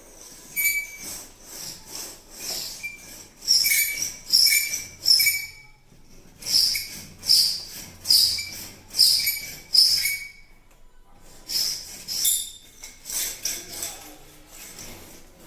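Plasterer's spatula scraping excess plaster off a newly fitted plaster crown moulding, in repeated strokes about one to two a second, each with a short squeak. The strokes come in three runs with short pauses between them.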